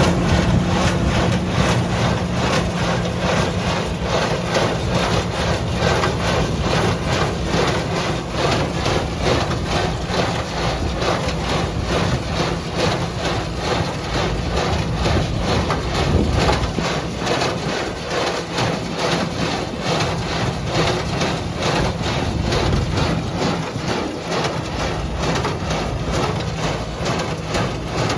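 Tractor running steadily under load while working a small square baler, with a rapid, even rhythm of strokes from the baler's plunger.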